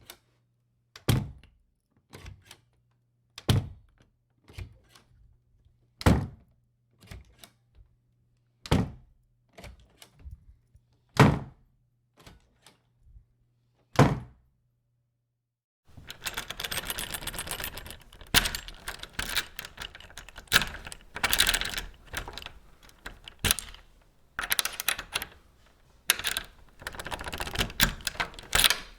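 Hollow wooden door struck or banged shut over and over: six loud thuds about two and a half seconds apart, with softer knocks between, over a faint low hum. About halfway through, this gives way to a key working in a lock: a dense, continuous rattle of clicking and scraping metal.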